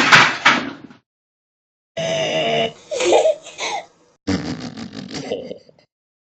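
A run of fake burps made with the throat. One trails off about a second in, then three more follow at about one-second intervals. The last is long, croaky and rattling.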